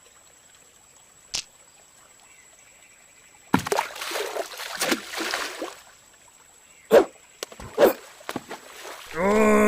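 Water splashing for about two seconds, followed by a few short sharp splashes or plops, then a brief pitched vocal exclamation near the end.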